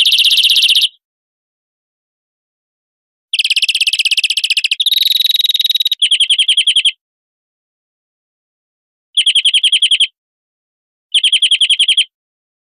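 European greenfinch song: phrases of rapid trilled notes, four of them with pauses of one to two seconds between. The long second phrase includes a steadier held note before another trill.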